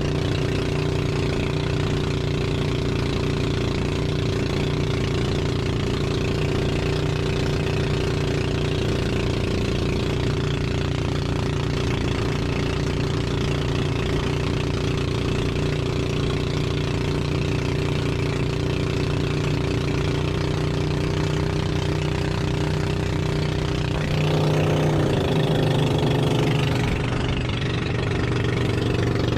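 Outrigger boat's engine running steadily underway, a constant droning note. About three-quarters of the way through, the engine note shifts and grows briefly louder, then settles again.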